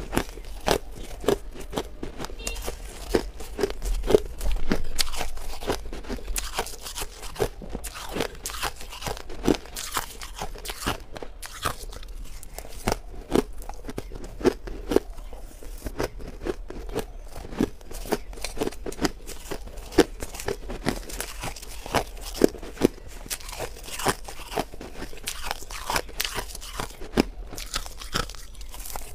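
Crunchy white freezer frost being bitten and chewed close to a lapel microphone: a continuous run of sharp, irregular crunches.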